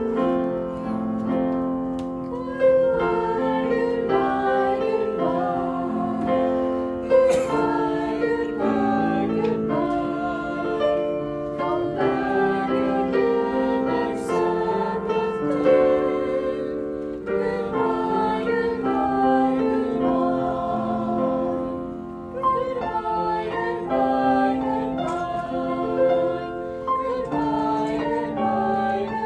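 A children's Sabbath school song sung to instrumental accompaniment, the melody moving in steady held notes.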